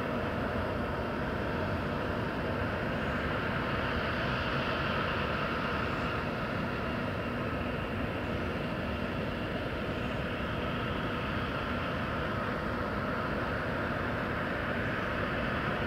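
Boeing 747-8 jet airliner's four GEnx turbofan engines on final approach and landing: a steady rushing drone.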